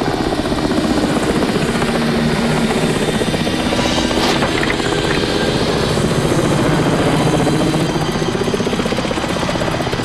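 Military helicopter flying low overhead, its rotor blades beating in a fast, steady chop over the engine noise.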